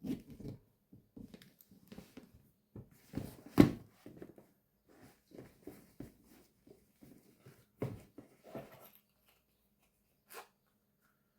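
Hand-handling noises as a fashion doll is dressed: scattered rustles of fabric and small clicks, with a sharper knock about three and a half seconds in and another near eight seconds.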